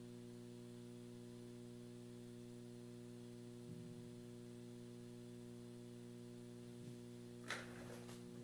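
Steady mains hum from the live electric bass signal chain, with the strings silent. A short, faint click of handling noise comes about seven and a half seconds in.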